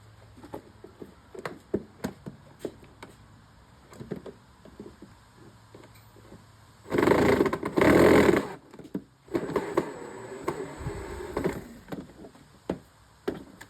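Light clicks and knocks of screws and plastic parts being handled on a Power Wheels ride-on toy, then two loud bursts of a cordless drill, about a second each, taking screws out about seven seconds in.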